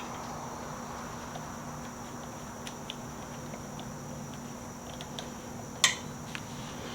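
A few light clicks and taps of metal parts as a motorcycle exhaust pipe is worked onto its mounts, with one sharper click about six seconds in, over a steady background hum.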